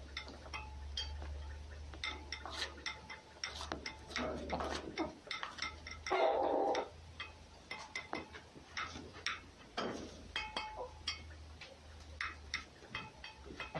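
A fox and a cat at close quarters, the fox nosing and grooming the cat: scattered small clicks and taps over a low hum, with one short, louder sound about six seconds in.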